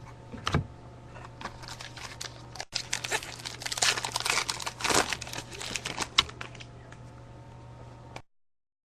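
Trading cards and a foil pack wrapper being handled: rustling, crinkling and small clicks as the cards are shuffled, busiest in the middle. The sound cuts off abruptly about a second before the end.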